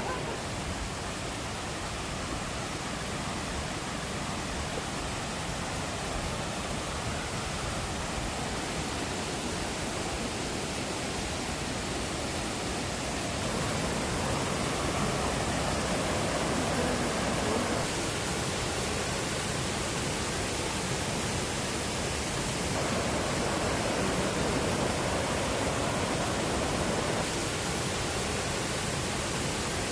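Steady rush of water in a mountain river gorge, an even hiss with no pauses, getting a little louder about halfway through.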